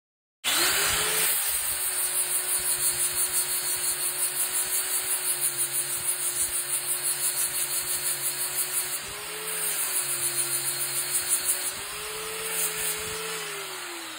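Electric power tool motor running at speed with a steady whine and about four pulses a second. Its pitch dips and rises a couple of times as the load changes, and it starts to wind down near the end.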